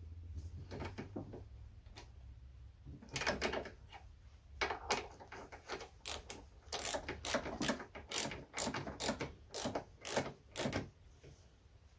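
Hand ratchet with a 10 mm socket clicking in short runs as it tightens the carburettor's mounting bolts on a lawnmower engine. From about halfway the clicks come faster and louder, a few a second, and they stop about a second before the end.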